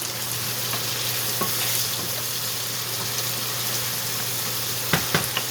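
Pork, chicken, garlic and onions sizzling in oil in a frying pan with oyster sauce just added, stirred, with a few sharp utensil clicks against the pan about five seconds in.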